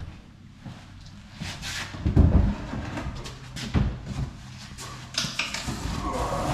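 Knocks, thumps and scraping as a heavy ceramic Belfast sink is lifted out and handled against a wooden kitchen base unit. The loudest thump comes about two seconds in and a second one near four seconds, with rough scraping near the end.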